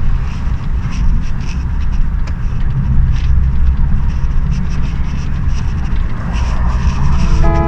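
Vehicle running on the road: a steady low rumble with light scattered rattles. Music comes in near the end.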